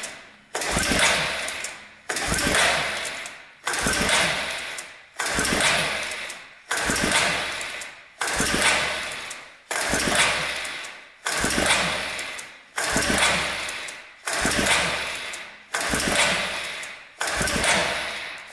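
The recoil pull-starter of a 2006 Arctic Cat 400 ATV is pulled about twelve times in a row, roughly once every second and a half. Each pull spins the engine over with a sudden whirr that fades away. The engine is being cranked for a compression test, with the throttle open and a gauge in the spark-plug hole.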